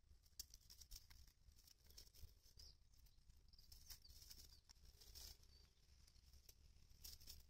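Faint, irregular crunching and tearing of rabbits chewing a raw cabbage leaf, soft clicks coming several times a second.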